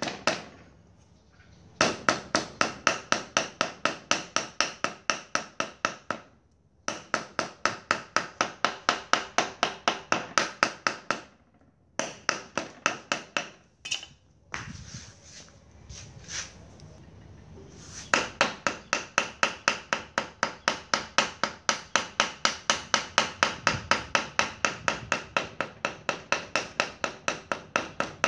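A large knife chopping rapidly on a round wooden chopping board, mincing small fish, about four to five ringing strokes a second. The chopping pauses briefly a few times, with a softer, irregular stretch of handling midway.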